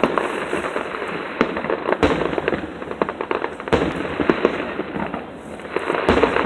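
Fireworks crackling and popping in rapid, continuous succession, with a few louder bangs standing out among the crackle.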